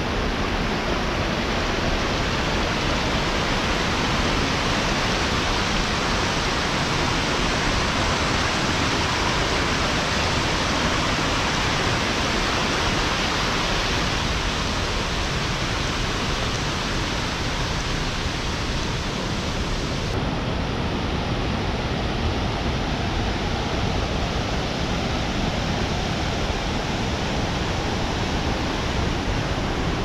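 Rushing water of a stream cascading over rocks, a loud, steady hiss. About two-thirds of the way through it turns suddenly duller as the highest part of the hiss drops away.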